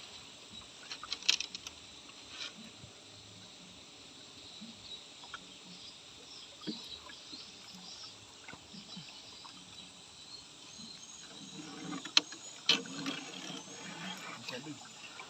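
Quiet outdoor ambience with a steady faint hiss, broken by a few sharp knocks and clicks about a second in and again as a louder cluster near the end.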